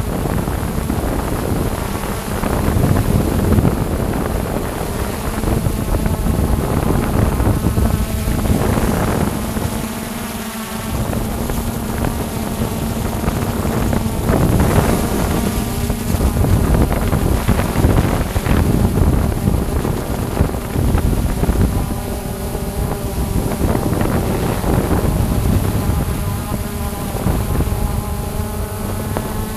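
Camera drone's electric motors and propellers whirring steadily, a buzzing hum whose pitch wavers a little as the drone manoeuvres, with wind buffeting the microphone.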